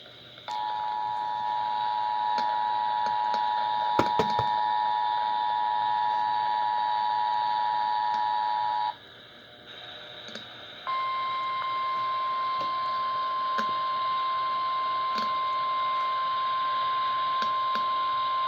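Emergency Alert System attention signal over FM radio: the two-tone alert sounds steadily for about eight seconds, with a few faint clicks partway through. After a short break of plain hiss, a single steady tone sounds for about nine seconds.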